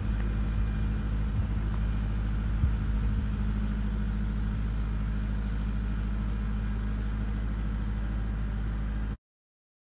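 Compact tractor engine running steadily as the tractor drives through tall sorghum-sudangrass, flattening it into a mulch mat (roller crimping). The sound cuts off abruptly near the end.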